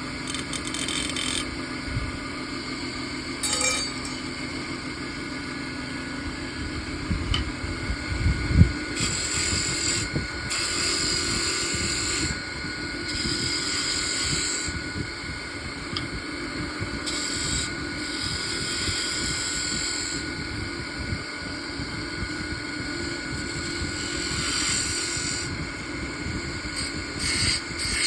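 Wood lathe running with a steady motor whine, a turning tool cutting into the spinning wood in repeated spells of scraping noise that start and stop every few seconds.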